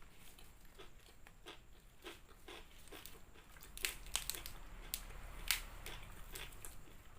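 Close-up eating sounds: crispy fried chicken being bitten and chewed, a run of irregular crunches that grows louder and denser about four seconds in.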